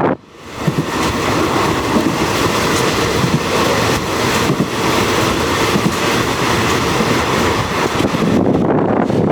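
Express train 136 running on the line, a steady rumble of wheels on rail, mixed with wind noise on the microphone. The sound dips briefly right at the start, then runs on steadily.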